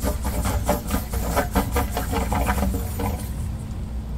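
Steady low machinery hum with rapid, evenly spaced ticking, about five ticks a second, that stops a little under three seconds in while the hum carries on.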